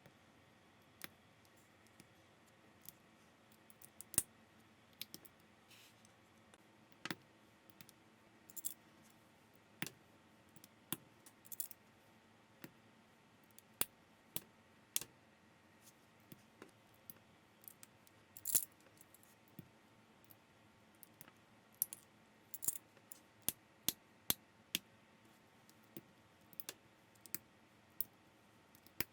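Plastic building bricks clicking and snapping together by hand, in irregular single clicks about every second, with a few brief rattles and scrapes of loose pieces.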